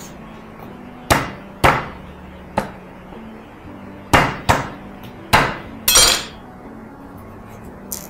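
Chef's knife knocking on garlic cloves against a wooden cutting board, crushing them: seven sharp knocks at uneven intervals, the last the loudest and longest.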